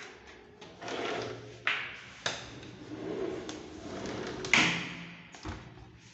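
A sliding window sash pushed along its track, with scraping runs and three sharp knocks as it meets the frame, the loudest about two thirds of the way through.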